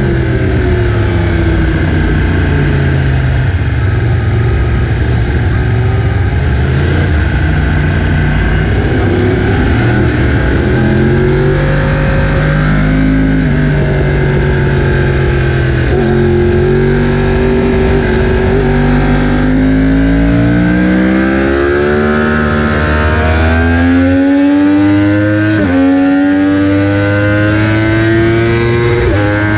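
Yamaha R1 sportbike's crossplane inline-four engine under hard riding on a race track. It holds a fairly steady note for about the first twelve seconds. Then the revs climb again and again, each climb cut off by a quick drop in pitch as the bike shifts up, several times in the last ten seconds.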